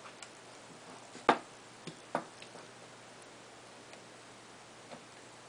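Sharp clicks of a metal Allen key and small parts being handled against a paintball marker's frame as its grip screws are undone: one loud click a little over a second in, two softer ones around two seconds in, and a faint one near the end.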